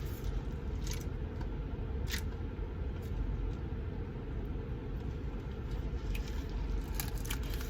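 Steady low rumble of a car's interior, the engine idling, with a few brief clicks around one and two seconds in and near the end.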